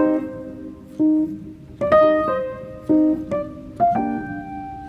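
Background music: chords struck about once a second, each ringing out and fading.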